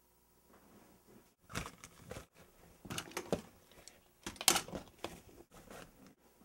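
Bedding rustling and things being handled, in several short bursts with abrupt dead cuts between them: a sheet and duvet shifting as a hand moves about the bed and reaches for a phone.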